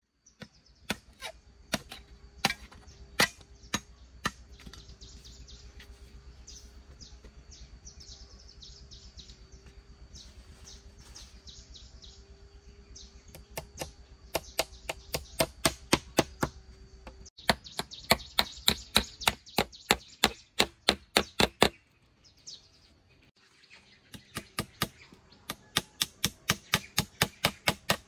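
Sharp strikes of a hand tool on wood, scattered at first, then in quick even runs of several blows a second with short pauses between the runs.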